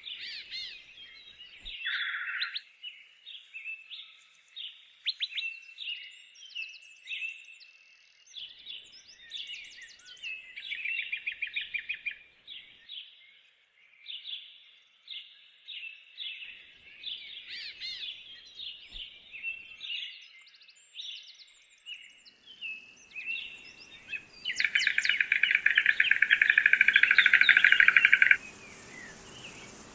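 Small birds chirping and singing in quick runs of short notes. About two-thirds of the way through, a steady high insect hiss comes in, and a loud, fast rattling trill runs for about four seconds before stopping abruptly.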